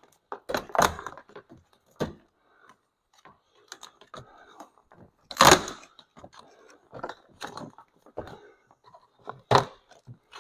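A plastic cover being pulled off a car's inner door by hand: scattered clicks, rustles and knocks, with two louder knocks about five and a half and nine and a half seconds in.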